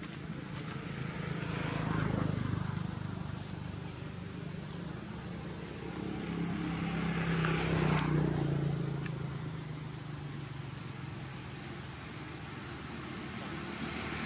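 Engines of passing road vehicles: a low hum that swells and fades as they go by, loudest about two seconds in and again around eight seconds in.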